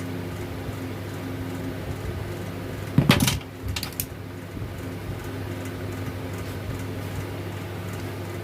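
A steady low electrical or mechanical hum, with a brief clatter of metal parts or tools being handled about three seconds in and a smaller one a second later.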